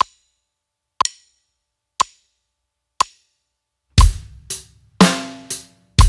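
A metronome clicks four times, one second apart at 60 beats per minute, as a count-in. About four seconds in, a basic rock beat on a drum kit starts: hi-hat on every eighth note, bass drum on 1 and 3, snare drum on 2 and 4, with the metronome still clicking along.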